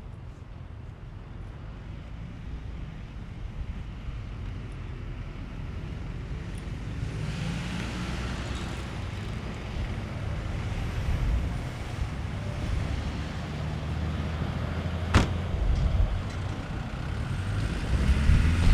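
A road vehicle approaching, its engine and tyre noise growing steadily louder, with a single sharp click about fifteen seconds in.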